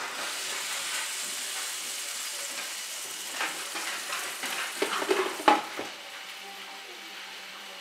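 Spice-rubbed chicken sizzling in a hot frying pan, the sizzle rising sharply as the meat goes in. About five seconds in come a few clattering knocks as the glass lid is set on the pan, after which the sizzle is quieter.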